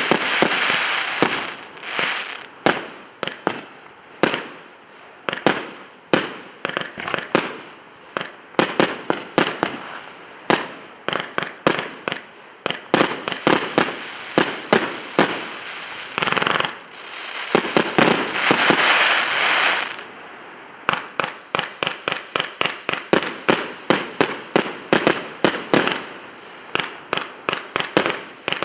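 Emperor Fireworks 'Maximum Impact' firework cake firing shot after shot of sharp bangs. There is a few seconds of dense crackling hiss past the middle, then a fast string of reports, about four a second, near the end.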